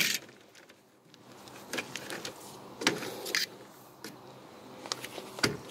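A stainless steel paddle stirring grain into the mash water inside a metal malt pipe while doughing in, with a few sharp knocks and scrapes of metal against the pipe wall.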